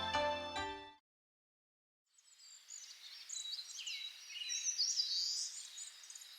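Background music fading out, then after a second of silence, small birds chirping and twittering in many short, quick high calls over a faint outdoor hiss. The bird sound swells up and tapers off again.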